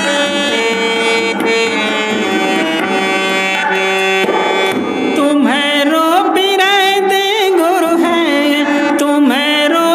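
Harmonium playing a held, sustained melody with tabla accompaniment in a devotional bhajan. About halfway through, a louder, wavering melody with sliding pitch comes in over it.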